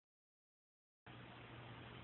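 Near silence: about a second of dead silence as the recording starts, then faint room tone with a low steady hum.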